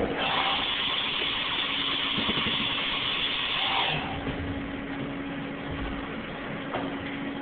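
Compressed-air blow gun hissing steadily for about four seconds, then cutting off, over a steady machine hum.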